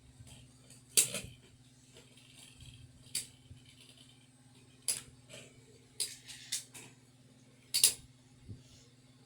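Scattered sharp plastic clicks and clacks from Beyblade X tops and parts being handled, about six in all, over a low steady hum.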